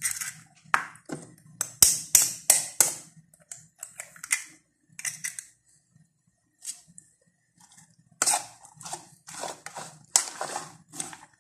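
A metal spoon tapping and cracking an egg over a bowl, a quick run of sharp clicks, then after a pause the spoon clinking and scraping in the bowl as the eggs are stirred into chopped cabbage.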